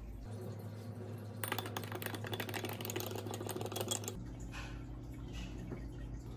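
Metal teaspoon stirring yeast and sugar into water in a glass measuring cup, clinking rapidly against the glass for about three seconds before stopping.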